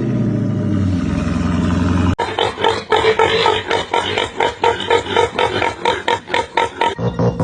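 Animal calls that sound like a car engine. First comes a long, pitched growl. After an abrupt cut about two seconds in, a rapid, even series of grunt-like pulses follows, about five a second.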